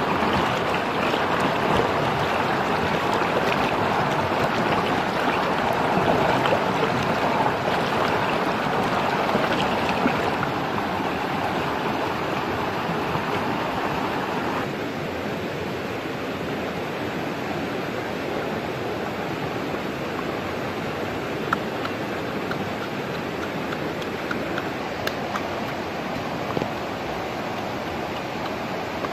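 Rushing river rapids: water pouring fast over rocks, a steady noise that drops a step in level about halfway through. A few faint clicks sound over it in the second half.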